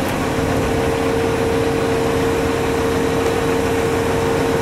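Large truck-mounted crane's diesel engine running steadily under load, with a steady whine that sets in just after the start.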